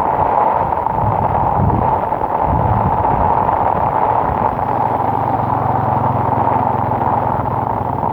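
Heavy rain and wind beating on a smartwatch's small microphone, giving a loud, steady, distorted rushing noise. About halfway through, a steady low hum joins it.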